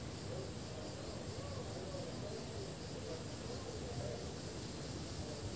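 Outdoor background ambience: a steady low rumble under a steady high hiss, with no clear event standing out.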